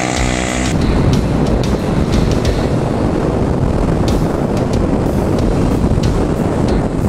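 Wind buffeting the microphone on a Yamaha Mio i125 scooter riding at speed, with the engine running under it. A music track cuts off within the first second.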